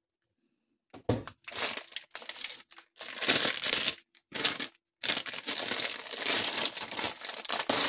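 Clear plastic sleeve around a rolled diamond-painting canvas crinkling as it is handled, in irregular bursts starting about a second in, with a longer stretch near the end.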